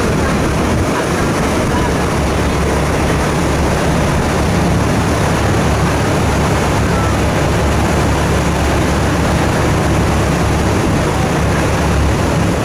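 Passenger ferry's engine droning steadily under a constant rush of wind and churning wake water.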